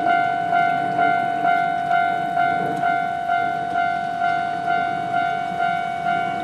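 Japanese railroad crossing warning bell ringing in a steady kan-kan rhythm, about two strikes a second, each fading before the next: the signal that a train is approaching and the crossing is closing.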